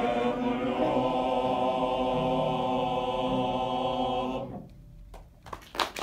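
Male choir holding a long final chord, which cuts off about four and a half seconds in. The first scattered claps of applause come in near the end.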